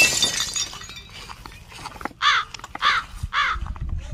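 A crow cawing three times, each call about half a second after the last, in the second half. Before that, a loud sudden crash-like burst fades away in the first half second.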